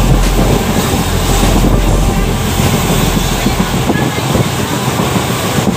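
Steady running noise of a passenger train at speed, heard from an open coach window: wheels on rail and the coach in motion. Wind buffets the microphone with a deep rumble that eases about four seconds in.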